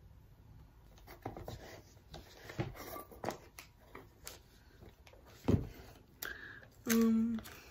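Small rustles, rubs and taps of someone moving close to the microphone. There is one heavier thump about five and a half seconds in, and a short hummed voice sound near the end.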